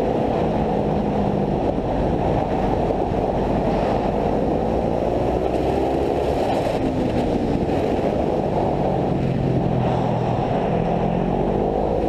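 Racing kart engine heard onboard, its revs slowly rising and falling, under a steady rushing noise.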